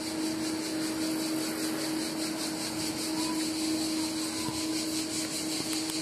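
Street ambience: a steady hum with a shrill, rapidly pulsing chorus of insects over it.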